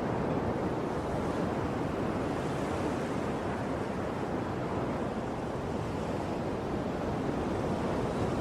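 Ocean surf: waves washing steadily on a shore in an unbroken rush, easing a little about midway and building again near the end.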